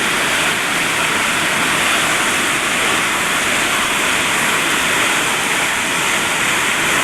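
Waterfall: a steady, loud rush of falling water close by.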